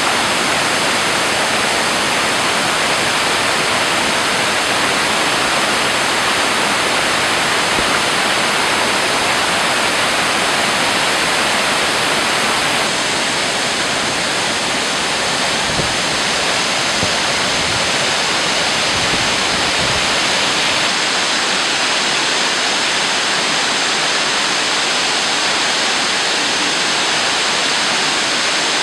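Waterfalls pouring over karst rock into pools below: a steady, loud rush of falling water.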